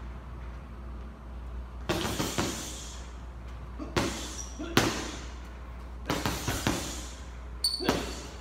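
A series of sharp thuds, several in close pairs about half a second apart, each with a ringing echo. A short high squeak comes just before the last thud.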